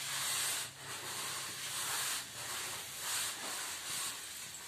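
Loose soil being scraped and rubbed across an earthen floor: a rough rubbing hiss that swells in strokes about once a second.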